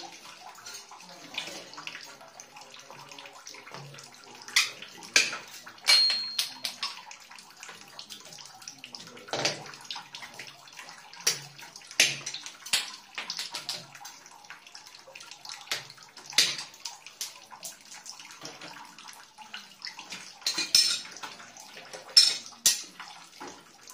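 Scattered sharp knocks and clicks, about a dozen at irregular intervals, as plastic water pipes and their fittings are handled and adjusted by hand against a tiled wall. A faint steady hiss runs underneath.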